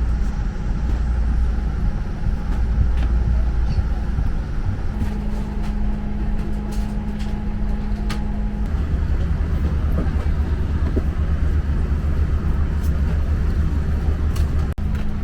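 Steady low hum of a Boeing 787-9's cabin ventilation while the aircraft waits before departure. Its tones shift a couple of times, and a few faint clicks sound over it.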